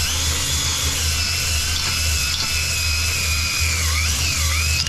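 Cordless drill spinning an adjustable stone cylinder hone in the oiled cylinder bore of a Yamaha JN6 golf cart engine: a steady motor whine that wavers in pitch as the drill speed shifts, over the wet gritty scraping of the stones on the cylinder wall. The hone is cleaning deposits out of the bore and cutting a crosshatch for new piston rings.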